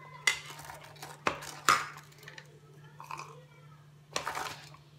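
Short clatters and rustles of ingredients being handled at a steel mixer jar. The loudest comes about one and a half seconds in and a longer rustle near the end, over a steady low hum.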